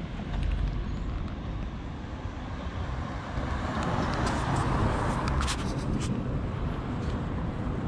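A car passing on the street, its tyre and engine noise swelling to a peak about four to five seconds in and then fading, over a low steady traffic rumble.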